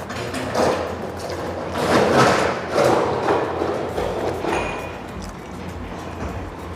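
Close-up eating sounds: a mouthful of food eaten by hand being chewed, in several loud bursts that are strongest in the first half, over quiet background music.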